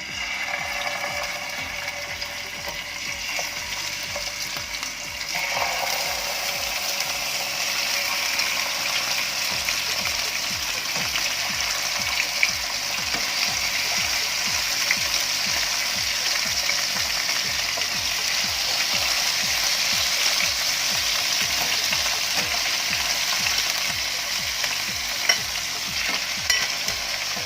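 Marinated chicken wings shallow-frying in hot oil in a pan: a loud, steady sizzle that starts suddenly as they go in and grows louder about five seconds later, with a few light ticks.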